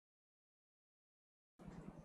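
Near silence: a dead-silent track until about one and a half seconds in, when faint room noise with a low pulsing hum starts.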